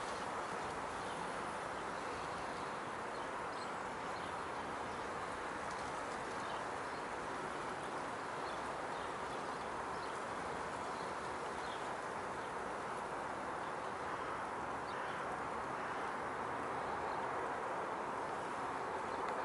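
Steady outdoor background hiss, with a few faint, short bird calls scattered through it.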